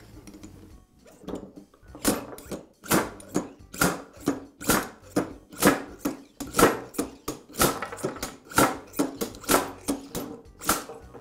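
Slide hammer on a blind bearing puller striking its stop again and again, a rapid run of sharp metal clanks at about two to three a second, pulling the ball bearing out of a drill press quill.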